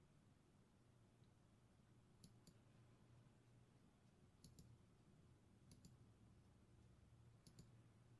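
Faint computer mouse clicks: four double clicks (button press and release) spaced one to two seconds apart, over a faint low hum.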